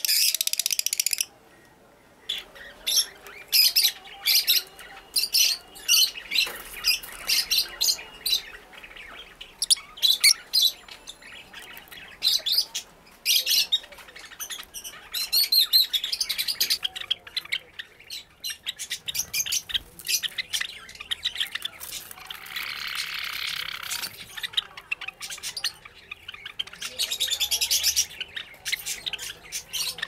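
A flock of caged lovebirds chattering: rapid, shrill, high-pitched chirps and squawks, with a few short pauses.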